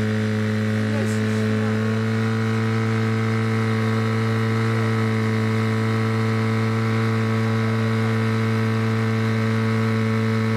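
Portable fire pump's engine running at a steady, constant high speed, feeding water through the hose lines to the nozzles.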